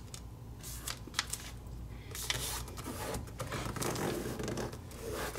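Origami paper being folded and creased by hand: scattered soft rustles, brief scrapes and light taps of paper against paper and the board.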